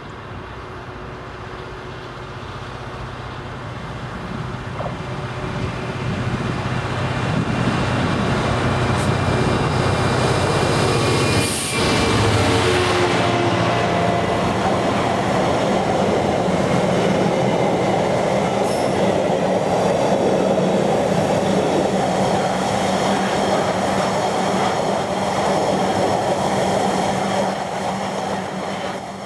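British Rail Class 66 diesel freight locomotive, a two-stroke V12, approaching and growing steadily louder, passing close about 12 seconds in. A long train of intermodal container wagons then rumbles past, steel wheels on the rails at a steady speed.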